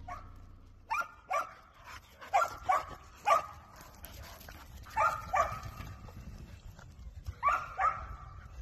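Dogs playing, with one barking about nine short barks in twos and threes: play barking.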